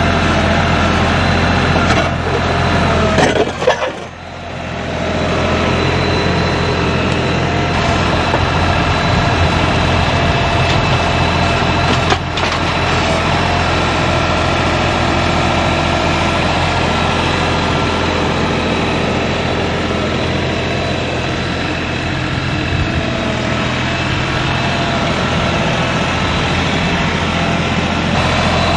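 Tractor engine running steadily, dipping briefly about four seconds in, with one short knock later on.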